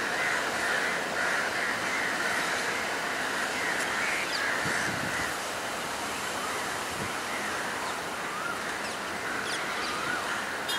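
Crows cawing in a run of harsh, repeated calls over a steady background noise, with a few thin bird chirps in the later part.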